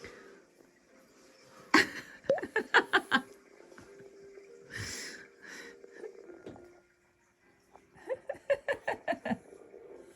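Breathy laughter in two quick runs of short pulses, one about two seconds in and one near the end, with a couple of hissing breaths between.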